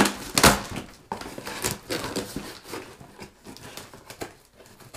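Cardboard box and packaging being handled: two loud knocks at the start, then irregular rustling, scraping and small clicks that fade toward the end.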